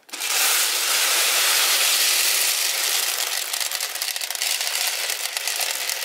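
A mass of small plastic beads pouring out of a toy microwave onto a tabletop: a dense rush of clicking that thins after about three seconds into separate clicks as the beads scatter and settle.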